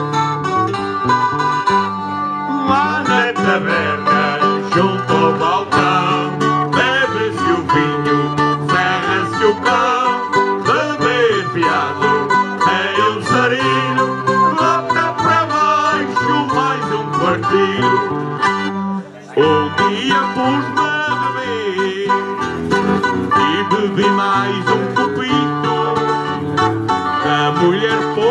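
Folk music played on plucked strings, the Azorean viola da terra with acoustic guitars (violão), a lively instrumental passage with a brief break about 19 seconds in.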